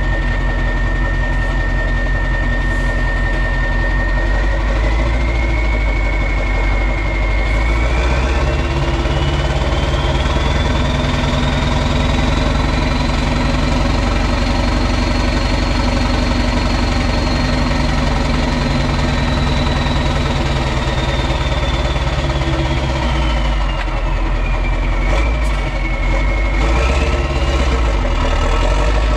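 Renault Magnum's 16.4-litre Mack E9 V8 diesel running loud through an open exhaust, with a turbocharger whistle that climbs in pitch over the first half, holds, and falls back near the end.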